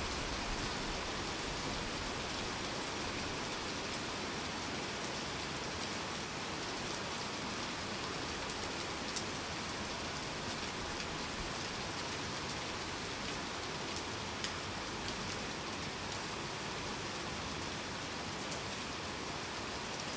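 Heavy rain falling steadily, an even hiss with a few sharper drop ticks standing out now and then.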